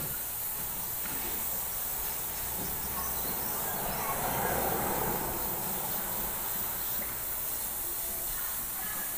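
Airbrush spraying paint with a steady, thin high hiss of compressed air. About four to five seconds in, a broader rushing noise swells and fades over it.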